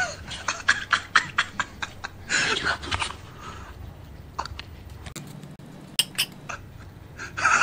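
People laughing in quick bursts during the first three seconds, then dying down, with a few sharp clicks near the end.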